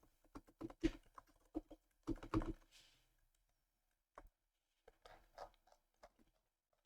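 Typing on a computer keyboard: a quick run of key clicks over the first two to three seconds, then a few scattered keystrokes.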